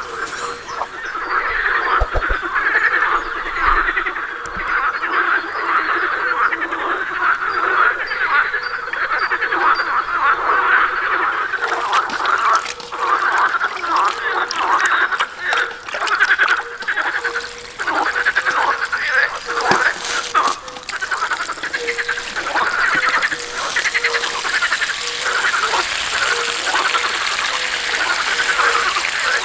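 Chorus of many frogs croaking continuously, a dense overlapping pulsing call.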